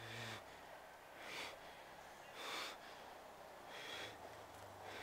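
A distressed teenage boy breathing heavily after sobbing: five audible breaths, about one a second, the first with a short catch of voice.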